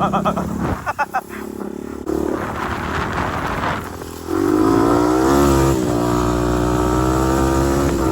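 Honda TRX250X four-wheeler's engine running while being ridden, with wind rushing over the microphone. About four seconds in, the engine picks up, its pitch rising and then holding steady.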